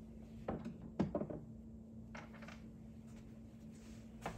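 A few short clicks and knocks of handling, loudest about a second in, with another near the end, over a steady low hum.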